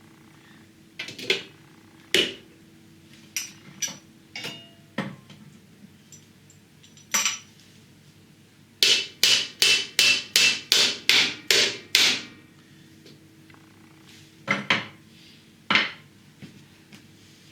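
Hammer blows driving a cylinder liner into a Ford 8N tractor's engine block: a few spaced strikes, then a quick run of about eight blows, about three a second, then two more.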